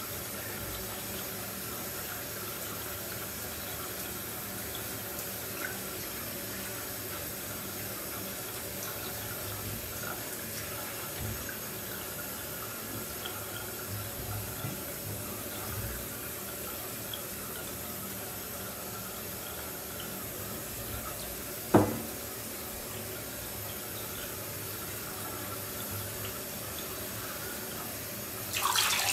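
Bathwater in a filled bathtub lapping and sloshing softly as feet in wet shoes shift about. A single sharp knock about three quarters of the way through, and a short splash near the end.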